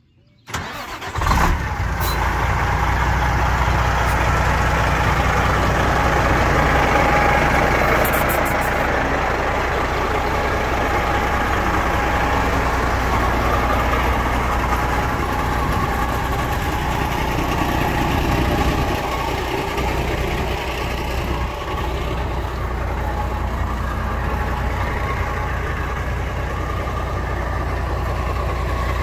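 Diesel engine of a 1991 White/GMC semi tractor idling steadily.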